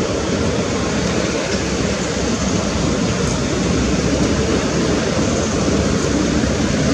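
Steady, loud rushing noise with no distinct events.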